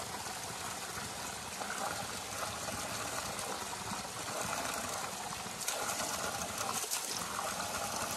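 Water pouring steadily from a spring spout and splashing onto the stones below, a little louder about two-thirds of the way in.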